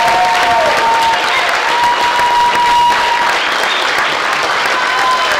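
Audience applauding steadily, with a few long whistles and whoops heard over the clapping.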